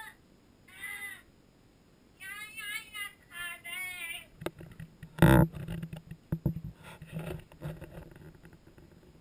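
A young child's high voice making short wordless calls or sing-song sounds, then a sharp loud thump about five seconds in, followed by a string of smaller knocks and bumps.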